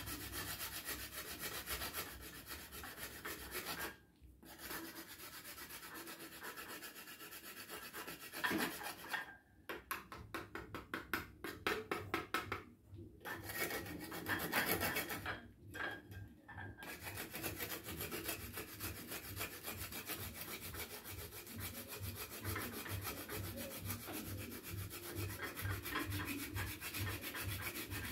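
A block of homemade chocolate being grated by hand on a grater: quick, rasping back-and-forth strokes, with a few short pauses, the first about four seconds in and several more in the middle.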